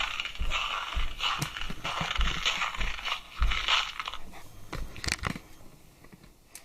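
Recorded footsteps crunching in snow, played loudly from a Christmas sound-effect button toy: a crunch about twice a second, which stops a little over five seconds in.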